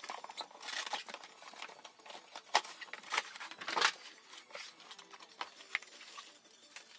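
Packaging being handled during an unboxing: irregular crinkling and rustling with several sharp clicks and knocks, the loudest about two and a half and four seconds in.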